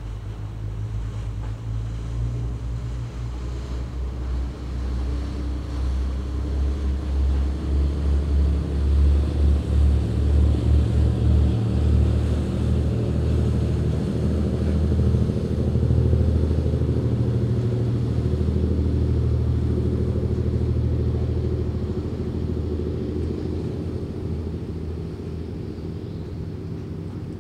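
Low, throbbing diesel engine rumble of a passing vessel. It grows louder toward the middle and slowly fades as it moves away.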